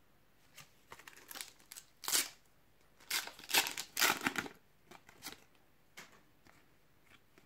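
Foil trading-card sachet crinkling and tearing as it is opened, with the cards inside rustling as they are pulled out, in a series of short bursts.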